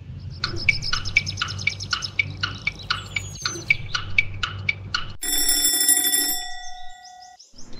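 Quiz countdown sound effects: a clock ticking quickly, about four ticks a second, for the answer time. Then a cartoon alarm clock rings with a steady tone for about two seconds, signalling that time is up.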